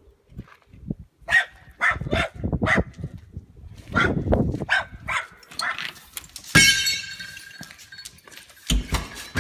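A dog barking and yelping repeatedly in short calls. About two-thirds of the way through, a sharp bang followed by a ringing tone that slowly fades, with a dull thump near the end.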